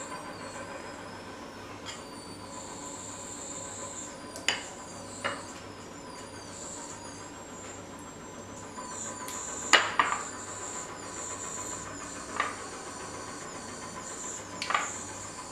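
About five short clinks and knocks of a metal spoon and ceramic bowls and plates against the stone countertop, spaced a few seconds apart, the loudest about ten seconds in, over a steady low room hiss.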